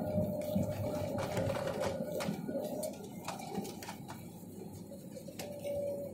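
Cabin noise of a jet airliner rolling down the runway just after touchdown, spoilers raised: a low rumble with a steady mid-pitched whine and scattered light clicks and rattles.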